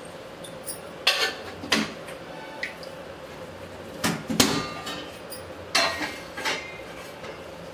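A small stainless steel saucepan of sesame oil heating on a gas burner, with about half a dozen sharp metallic clicks and clinks scattered over a steady faint hum.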